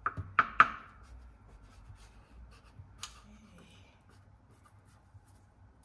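Large kitchen knife pressed down through puff pastry, its blade knocking on the paper-lined metal baking tray beneath: three sharp knocks close together at the start, then one lighter click about three seconds in.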